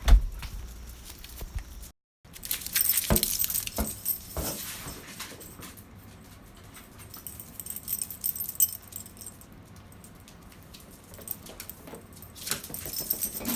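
Metal dog-collar tags jingling in bursts as a corgi moves, loudest about two to four seconds in and again near the end, with a few soft knocks.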